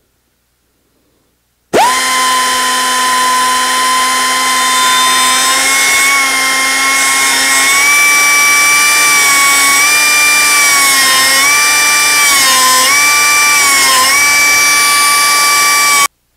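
Electric grinder cutting through a metal air cleaner base along a marked line. It starts about two seconds in and spins up to a steady high whine. Its pitch dips several times near the end as the disc bites into the metal, then it switches off suddenly.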